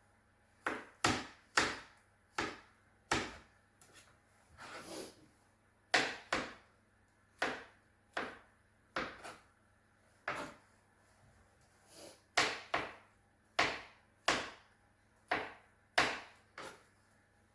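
Kitchen knife slicing mushrooms on a chopping board: a run of sharp knocks as the blade strikes the board, irregular at about one or two a second, with a softer scraping stroke about five seconds in.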